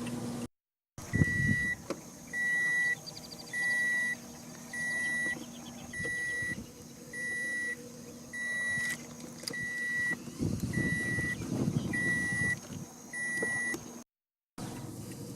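Vehicle backup alarm beeping steadily, one high beep about every 1.2 seconds, over a low engine rumble. It cuts in after a moment of silence and cuts out near the end.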